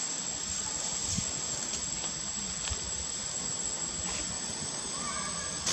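A steady, high-pitched insect drone in forest, over a faint even hiss, with a few light clicks and a brief call near the end.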